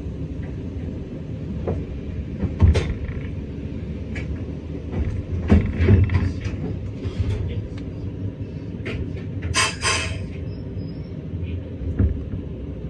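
A red Meitetsu train rolling slowly past on the adjacent track, heard from inside a stationary train's driver's cab: a steady low rumble with scattered clunks of wheels over the rails. A short hiss comes about ten seconds in.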